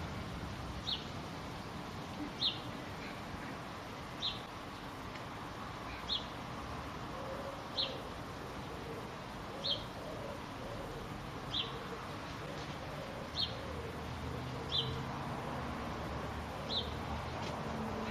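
A small bird calls one short, high note about every two seconds, about ten times in all, over steady outdoor background noise.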